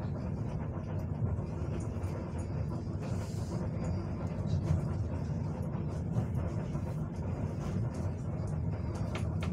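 Steady low rumble and hum inside the carriage of an ER9M electric multiple-unit train, with faint small knocks and passenger noise.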